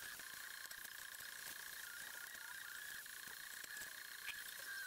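Faint, occasional light clicks of sheet-metal stove parts being handled, over a steady high hiss.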